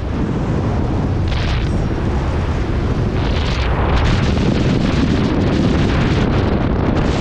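Loud, steady roar of air rushing past a skydiver's camera microphone, with stronger surges of hiss about a second and a half and three and a half seconds in.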